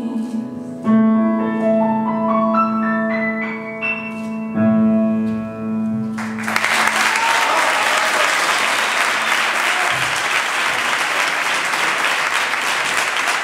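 Grand piano plays the closing phrase of a song: a rising line of single notes, then a final held chord. About six seconds in, audience applause breaks out and carries on.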